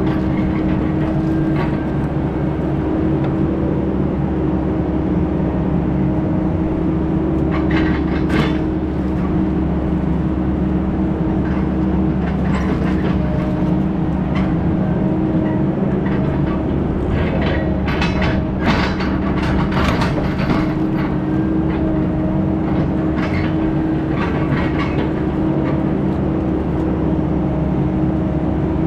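Heavy diesel engine running steadily, with intermittent rattles and knocks over it.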